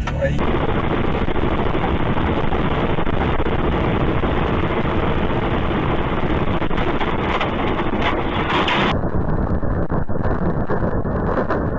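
Steady road and engine noise of a moving car, picked up by a dash-cam microphone. About nine seconds in it changes abruptly and becomes more muffled.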